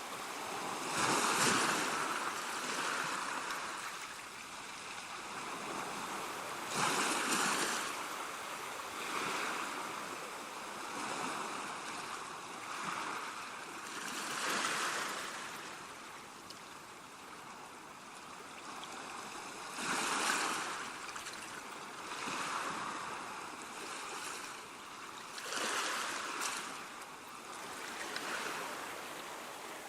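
Sea waves breaking and washing up the shore, a steady wash of surf with a bigger wave swelling and subsiding every five or six seconds.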